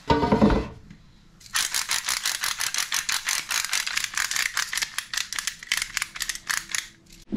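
Hand-turned pepper mill grinding peppercorns: a fast, rattling run of clicks lasting about six seconds. It comes after a low thump at the very start.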